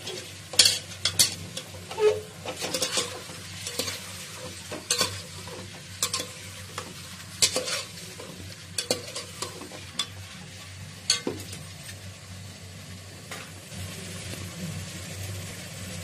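Raw chicken pieces sizzling in hot oil in a metal pot while being stirred with a perforated metal ladle. The ladle scrapes and clicks against the pot at irregular moments. The meat is being browned (bhuna) to cook off its rawness.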